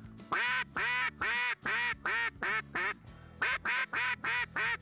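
Zink Power Hen Double Magnum double-reed duck call blown as a very loud hen-mallard quacking series. About eight quacks get shorter and quicker, a brief pause follows about three seconds in, then another run of quick quacks.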